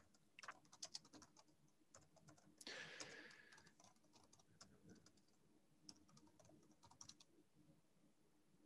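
Faint computer keyboard typing: irregular clusters of key clicks as text is entered, with a short hiss about three seconds in. The typing stops near the end.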